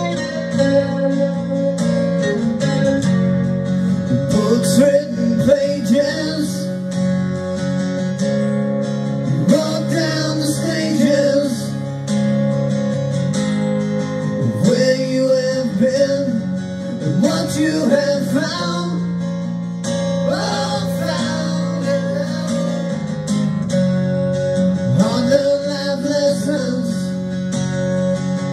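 Recorded song playing, with acoustic guitar to the fore, in a stretch without sung lyrics.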